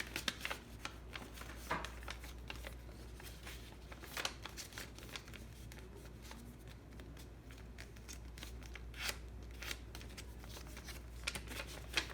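A sheet of origami paper being handled and folded by hand: irregular crisp rustles and creasing sounds, over a low steady hum.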